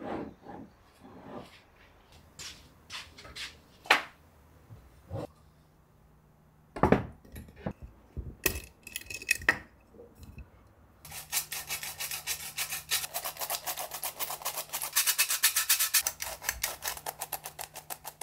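Glass clip-top storage jars handled, with scattered clinks and knocks of glass and the wire-clasp lids. Then a stainless steel squeeze-handle flour sifter works steadily, making a long run of rapid rasping clicks as it sifts flour.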